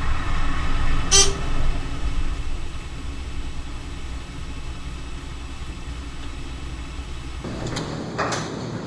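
A steady low mechanical rumble with a short beep about a second in. The rumble cuts off near the end, followed by a couple of sharp clicks.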